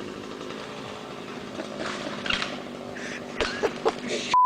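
An engine idling steadily in the background, with short shouts near the end cut off by a steady censor bleep.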